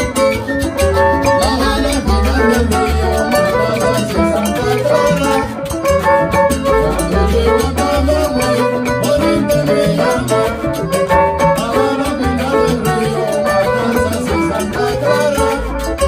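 A salsa band playing, with a pulsing bass line under dense melodic instruments and percussion.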